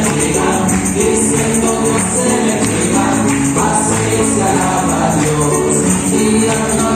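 Upbeat Christian praise song: a group singing over band accompaniment, with a tambourine shaken throughout.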